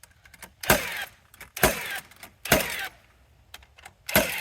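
Nails being driven into wooden framing lumber: four sharp strikes, roughly one a second, each with a brief ring.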